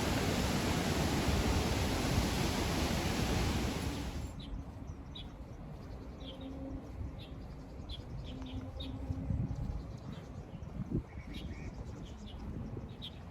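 A loud steady rushing noise cuts off abruptly about four seconds in. A quieter outdoor background follows, with a bird giving short high chirps every second or so.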